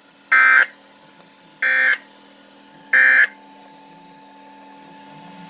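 Three short, identical buzzy bursts of SAME digital alert data, each about a third of a second long and a little over a second apart, over a faint steady hum of the weather-radio broadcast.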